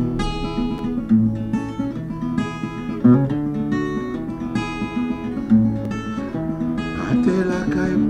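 Acoustic guitar played alone, a run of plucked and strummed notes that ring on; a man's singing voice comes back in near the end.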